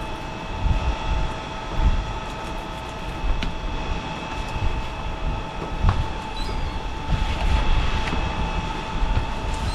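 Steady mechanical hum made of several high tones, over an uneven low rumble of wind buffeting the microphone that swells and fades.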